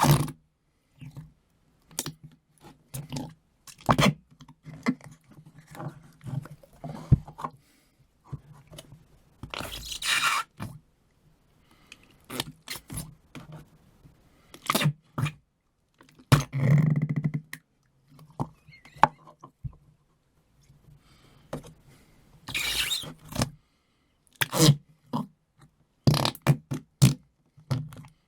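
Noise putty being squeezed and pushed into its tub, making irregular squelches, pops and fart-like noises. There is a longer, deeper squelch about halfway through and hissy, airy ones about ten seconds in and again near the end.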